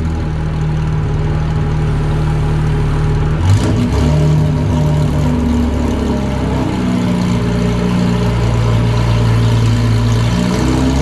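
Porsche 718 Cayman GT4's 4.0-litre flat-six running on a chassis dyno through a non-silenced titanium race exhaust, held at steady engine speeds. The pitch steps down with a brief click about three and a half seconds in, then shifts again twice.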